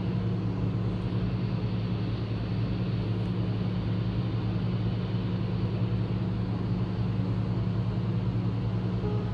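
A vehicle's engine running at a steady pace, a constant low hum with a steady rush of noise above it.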